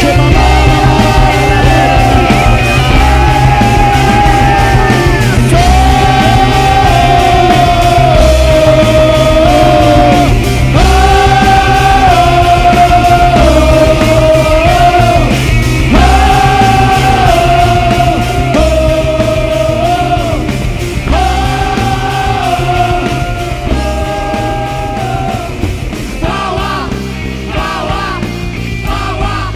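Live worship band playing a loud rock-style passage, with a held melody line in phrases of about two seconds over a steady beat. The band thins out and gets quieter over the last few seconds.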